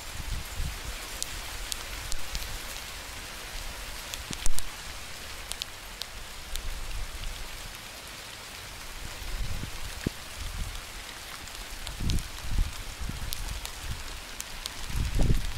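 Rain falling steadily, with scattered sharp drop ticks and one loud knock about four and a half seconds in; low rumbling bursts come in near the end.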